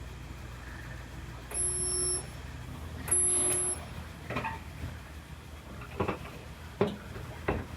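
Two short bursts of welding on a car's rear body panel, each under a second with a steady buzz, then several sharp knocks and taps on the sheet metal.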